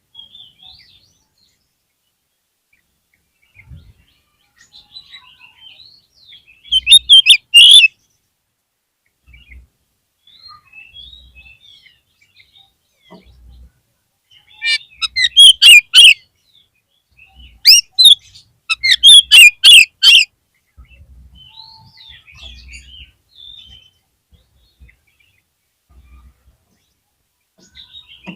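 Oriental magpie-robin (kacer) singing: soft, scattered chirps and whistles, broken by three loud bursts of rapid, sharp song notes, about a quarter of the way in, past halfway, and again two-thirds in.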